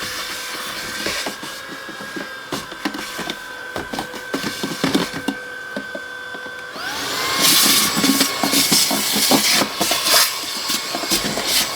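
Tineco Pure One X cordless vacuum cleaner running in handheld mode, with debris crackling and rattling through the nozzle. About seven seconds in, the motor's pitch rises and it gets louder as it steps up to a higher power setting, max mode.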